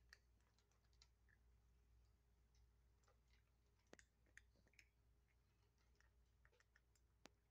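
Kittens eating dry kibble from plastic bowls: faint, irregular crunching clicks, with a few sharper ones about four seconds in and near the end.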